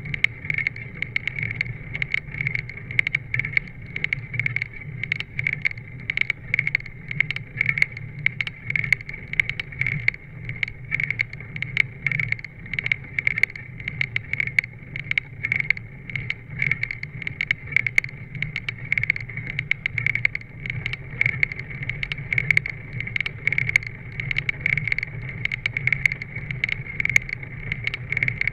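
Bicycle riding uphill, heard from a camera mounted on the handlebars: a steady hum of tyres on the coarse road, with frequent small irregular clicks and knocks throughout.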